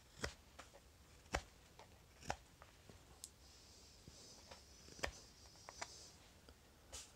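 Carving knife slicing shavings off the end grain around a wooden spoon's bowl: a run of short, crisp clicks roughly a second apart, with smaller ticks in between.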